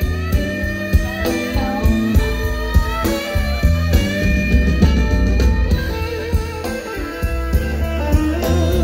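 Live blues band playing: an electric guitar leads with bent notes over bass and drums, with a harmonica playing along.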